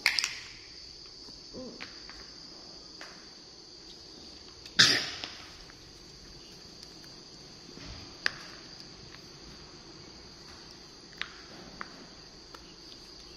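Scattered light knocks and taps on a hard tiled floor, the loudest a sharp knock about five seconds in, over a steady high-pitched insect chirring.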